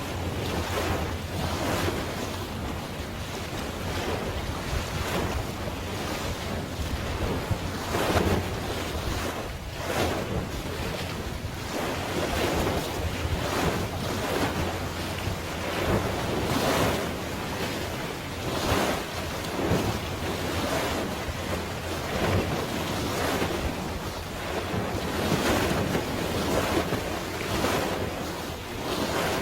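Sea waves washing in, swelling and falling every second or two, with wind rumbling on the microphone.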